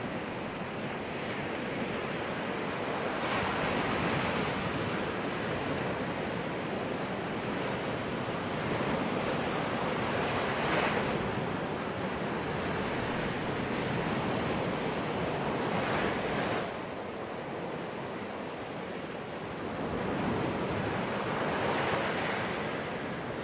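Ocean surf washing onto a beach: a steady rush of water that swells as each wave breaks, about every five to six seconds.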